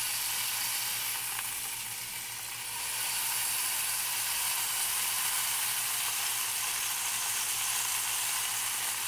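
Ground beef sizzling in hot oil in a cast iron pan as a meatball is smashed flat into a patty under the bottom of a saucepan. The steady sizzle grows louder about three seconds in, as the patty spreads across the pan.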